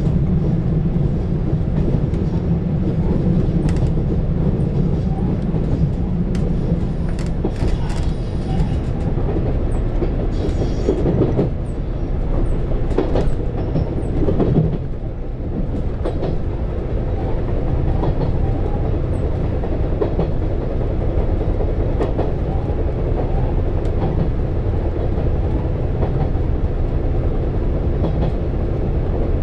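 KiHa 187 series diesel railcar running along the line: a steady rumble of engine and wheels on rail, with clicks and clatter over the track. About halfway through, the low engine drone drops away and the running continues a little quieter.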